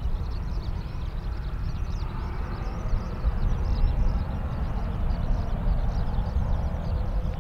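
Boeing 737-800's CFM56 jet engines running near idle as the airliner turns slowly onto the runway before takeoff: a steady low rumble with a faint whine above it.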